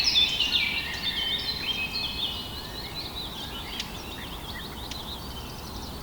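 Small birds chirping and twittering over a faint steady background hiss, busiest in the first two seconds and thinning to scattered chirps after.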